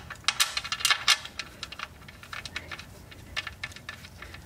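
Light metallic clicks and ticks as a 14 mm oil drain plug bolt is turned in by hand, hand-tight first, into the oil pan. The clicks come thick in the first second and more sparsely after.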